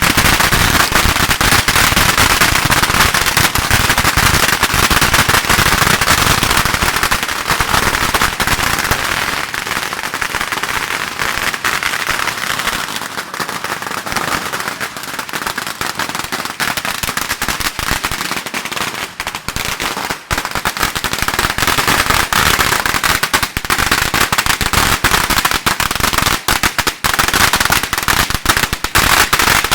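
Long strings of firecrackers going off in a dense, continuous rapid crackle of bangs, easing a little midway and building back up near the end.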